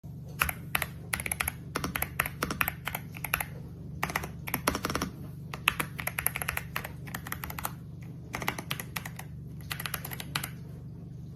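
Typing on a YUNZII B75 PRO gasket-mounted mechanical keyboard, with keystrokes coming in quick runs separated by short pauses. A steady low hum runs underneath.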